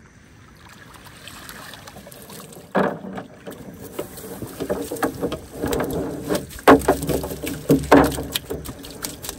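A wet cast net being hauled in and shaken out into a plastic tub: water splashes and drips from the mesh, and the net and its catch knock and clatter against the plastic. There is a sudden loud knock about three seconds in, then the knocks come thicker, with the loudest near the end.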